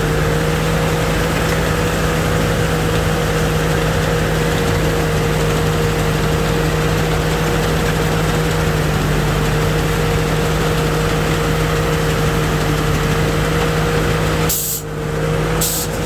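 Rice combine harvester running steadily at working speed: a constant engine drone with a steady hum from its machinery. Near the end the sound briefly dips, with two sharp clicks.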